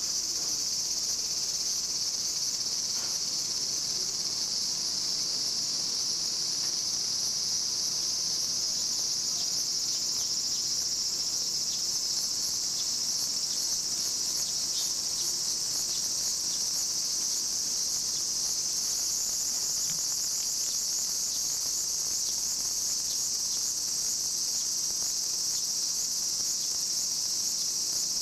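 A chorus of cicadas singing as one unbroken, high-pitched shrill, going slightly higher about two-thirds of the way through.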